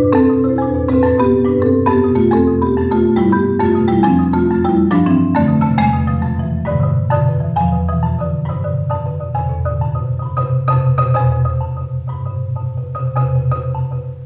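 Solo concert marimba played with mallets: a line of notes steps downward over the first half under quick higher notes, then a low note is rolled steadily while higher notes are struck above it, a little softer near the end.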